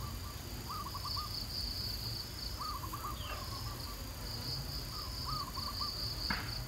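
Insects trilling steadily in a high, pulsing drone, with a bird calling short groups of a few notes every two seconds or so. A single sharp click comes near the end.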